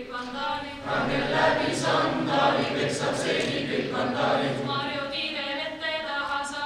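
A group of teenagers singing together in unison from song sheets, unaccompanied, with both low and high voices, growing louder about a second in.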